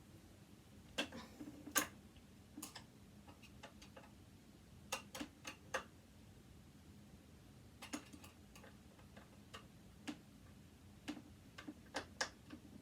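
Irregular small clicks and taps of a hand tool working at a tight screw in a sewing machine's casing, a few strokes at a time with pauses between.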